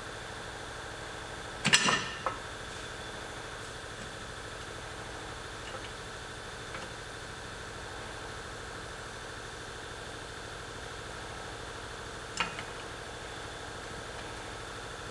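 Two metallic clanks, a loud one about two seconds in and a lighter one near the end, as new drum-type parking brake shoes and their hardware are fitted on a pickup's rear brake. A steady hum runs underneath.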